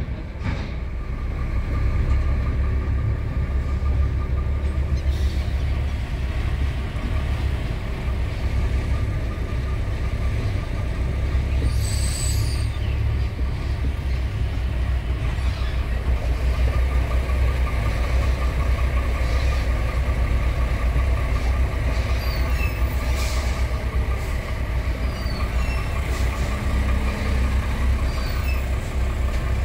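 Heavy truck's diesel engine running steadily at low revs while the rig is edged into place, with a couple of short hisses partway through.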